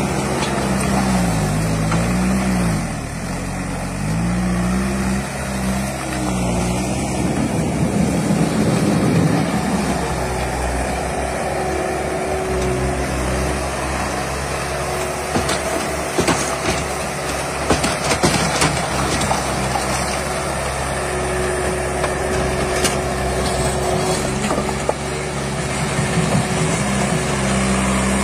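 Skid-steer loader diesel engines running, revving up and down repeatedly for the first several seconds and then running steadily. A cluster of sharp knocks comes around the middle.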